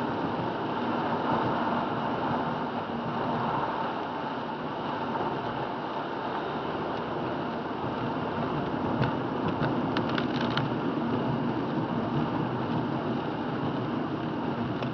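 Steady road noise heard from inside a car's cabin while driving on a rain-soaked road: tyres hissing on the wet pavement under the engine's hum. A brief run of sharp clicks comes about nine to ten seconds in.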